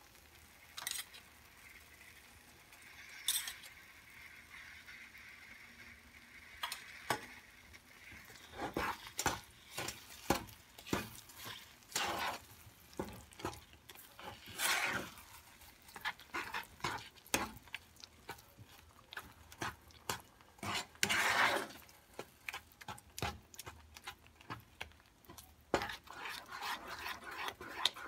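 Ghee sizzles faintly as it is poured over sugared semolina in a kadai. From about eight seconds in, a wooden spoon stirs and scrapes the rava kesari in the pan, making a quick, uneven run of knocks and scrapes with a few longer swishes as the sugar melts into the mix.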